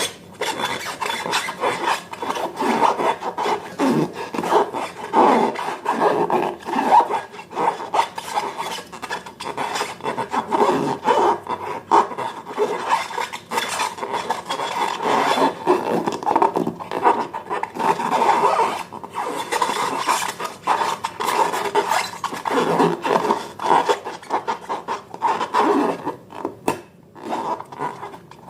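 Slime being mixed and worked by hand: continuous, irregular rubbing and scraping strokes.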